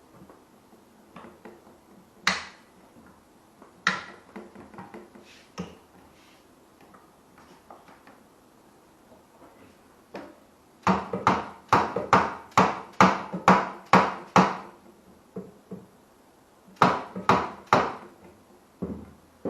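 Swing arm of a classic trials motorbike being knocked into its frame mounting: a few single knocks, then a quick run of about ten taps at roughly three a second, then three more near the end.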